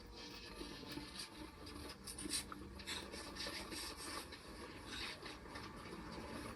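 Irregular scratching and rubbing strokes close to the microphone: hair and wig being handled, brushed or rubbed by hand.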